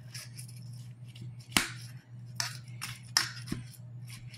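Metal spatula cutting into a cheesy baked casserole and scraping and clicking against the baking dish: a handful of sharp clicks and short scrapes, the loudest about a second and a half in, over a low steady hum.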